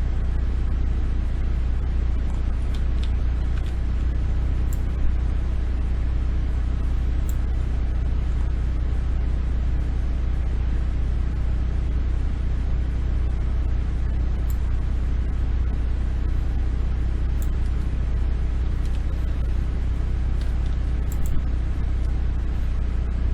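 Steady low hum with a faint hiss of background noise, with a few faint clicks scattered through.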